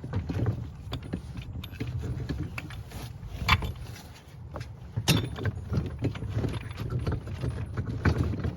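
Irregular knocks, clicks and clatter of hands working on a cart wheel and its parts while a tire is changed, the sharpest knocks about three and a half, five and eight seconds in, over a steady low rumble.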